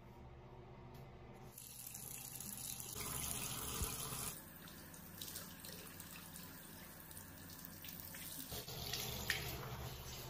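Water running from a bathroom sink tap and splashing over hands in the basin.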